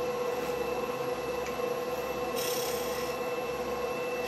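Wood lathe running with a steady hum while a turning tool cuts the spinning wooden handle blank, taking the ball at its end down; a brighter hissing cut comes about halfway through.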